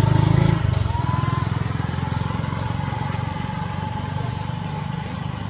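A motor vehicle's engine running with an even, pulsing low rumble, loudest in the first half-second and then fading away steadily.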